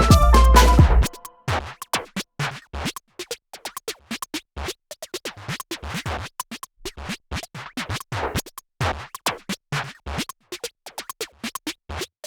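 Background music cuts off about a second in, followed by quick, irregular scratchy strokes of a drawing tool on paper, several a second with short silent gaps between them.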